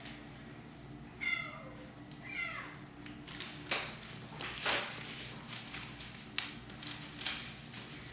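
A kitten meows twice, each call falling in pitch. Then plastic drinking straws clatter and tick in a string of sharp, irregular clicks as kittens paw at and walk through a loose pile of them on a hard floor.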